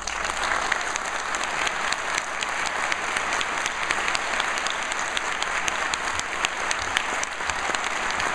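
Audience applauding, the clapping starting all at once and holding steady.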